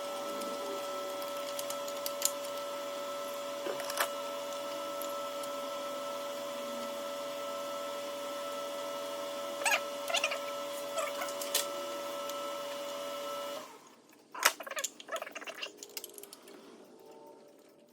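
A steady machine hum made of several fixed pitches, which cuts off abruptly a little over halfway through. After it stops come a sharp click and a short run of clicks and rattles from tools or parts being handled.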